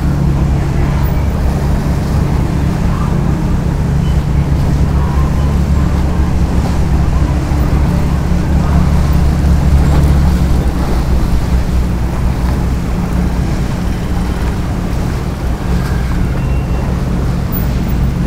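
A boat's engine running with a steady low drone, over a wash of water and wind noise.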